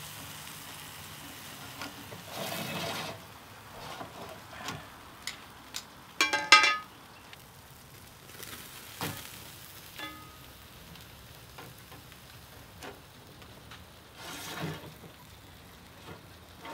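Thick bone-in ribeye sizzling as it sears over red-hot charcoal on a grill grate, the final sear of a slow-and-sear cook. Scattered clicks and a few short louder scrapes sound over it, the loudest about six and a half seconds in.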